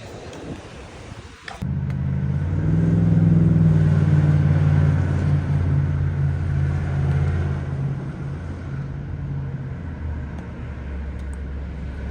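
A vehicle engine running steadily. It comes in abruptly about a second and a half in, is loudest for the next several seconds, then settles to a lower, steady level.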